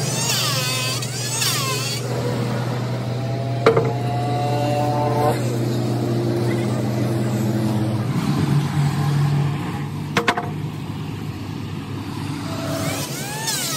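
Steady low motor hum, with a single sharp knock about four seconds in and two quick knocks about ten seconds in. A warbling music track is heard at the start and comes back near the end.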